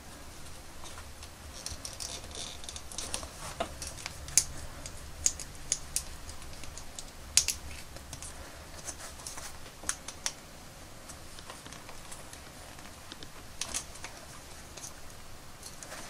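Irregular small clicks and scrapes of hand work on a hard plastic action-figure pelvis, as a screwdriver and thread force a tight rubber leg connector through its hole. The clicks come unevenly, the sharpest about four and seven seconds in.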